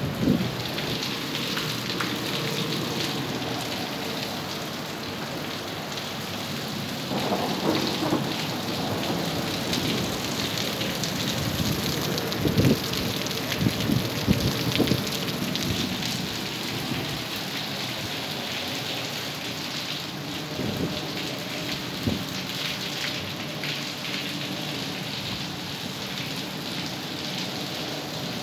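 Heavy rain pouring onto wet concrete and puddles, a steady hiss. A few louder low thumps come near the middle.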